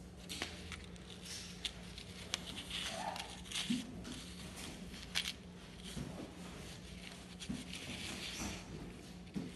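Handling noise of a stainless steel chain necklace with a stone pendant being turned over in cotton gloves and set down on a paper bag: scattered light clicks and short rustles of glove and paper.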